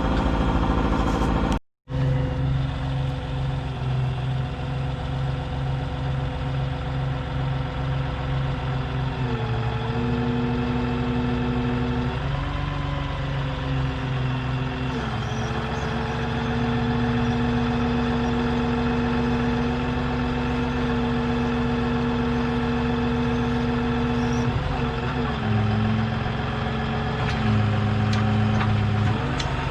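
An engine running steadily, its speed shifting up and down to new steady levels several times. The sound cuts out completely for a moment near the start.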